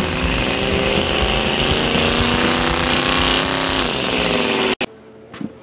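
Old pickup truck doing a burnout: the engine is held at high revs, rising a little, while the spinning rear tires screech steadily. The sound cuts off abruptly near the end.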